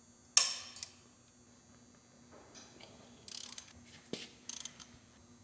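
A click-type torque wrench clicks sharply on a connecting-rod cap bolt, with a short metallic ring, as the bolt reaches its set torque. About three seconds later a socket ratchet clicks in quick bursts and a tool clanks once against the metal.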